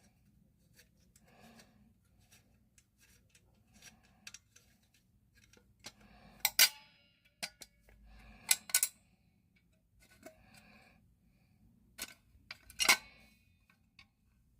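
Sharp metallic clicks and clacks from a Fire-Lite BG-6 fire alarm pull station being handled, a few seconds apart, the loudest about halfway through and near the end, with quiet breathing between them.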